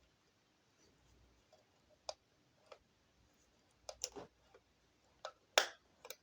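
Scattered light clicks and taps of hard plastic, about seven spread over a few seconds, from handling a Blythe doll's head while working its eye-changing mechanism.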